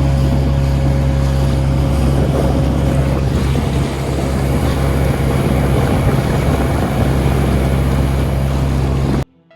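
Dinghy outboard motor running steadily under way, with wind and water rush; the sound cuts off suddenly near the end.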